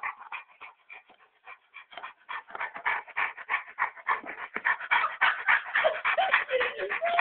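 Dog panting in quick, rhythmic breaths, the odd noises it makes while being massaged; softer for the first couple of seconds, then louder, with a few short whimpering tones near the end.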